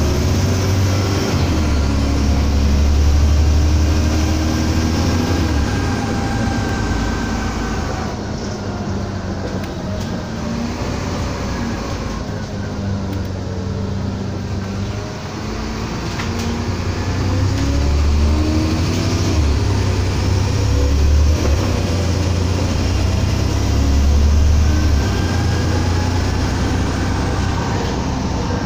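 Inside an Alexander ALX400 double-decker bus on the move: the engine and drivetrain run with a deep rumble, and their pitch rises and falls as the bus speeds up and slows. It goes quieter for a while in the middle, then louder again.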